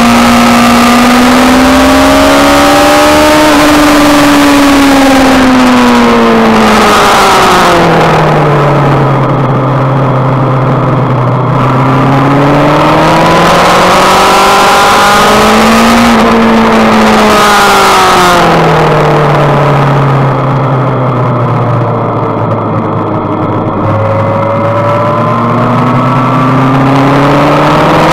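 Sport motorcycle engine at full race pace, revving hard and pitching down twice under braking into corners, then climbing again through the gears. Loud wind rush over the rider at speed fades in the two slow corner stretches.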